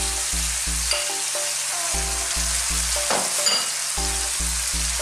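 Oil sizzling steadily in a frying pan as cubed chicken breast goes in on top of sautéed onion and tomato. A low, repeating background music line runs underneath.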